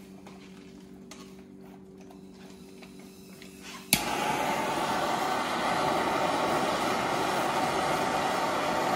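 A sharp click about four seconds in as the BernzOmatic propane torch is lit, then the torch flame burning with a steady, loud hiss. Before it, a quiet stretch with faint steady hum and a few light handling clicks.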